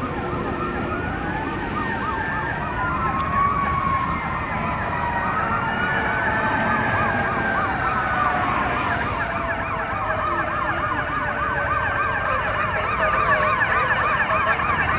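Several fire engine sirens sounding at once: slow rising-and-falling wails overlapping a rapid yelp, over a low rumble, growing slightly louder near the end as the trucks arrive.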